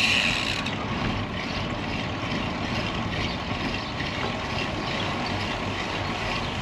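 Steady wind and road noise recorded from a moving road bicycle, with traffic passing. A high hiss cuts off abruptly about half a second in.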